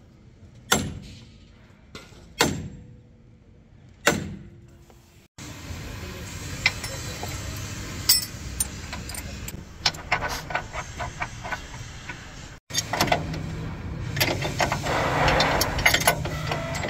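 Three heavy, ringing metal-on-metal blows about a second and a half apart as a steel bar is struck against a truck chassis. Then come the rapid clinks and clicks of a spanner working bolts on the truck's rear wheel hub, with a low hum underneath from about two-thirds of the way in.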